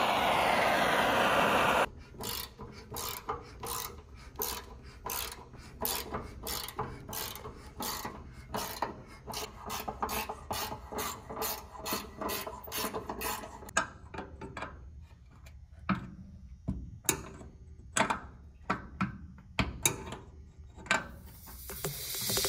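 Handheld butane torch hissing for about two seconds as it heats a rusted hood-bracket bolt, then a hand ratchet clicking in short strokes about twice a second as the bolt is worked loose, thinning out to scattered clicks in the last several seconds.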